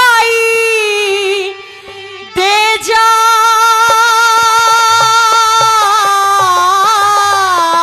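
Haryanvi ragni folk music: a long held melodic note over drum strokes. The sound dips briefly about two seconds in, and the drumming grows steady and busier in the second half.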